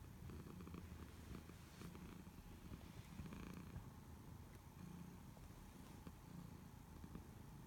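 Tortoiseshell cat purring: a faint, low, fluttering purr that swells and fades with each breath, about every second and a half.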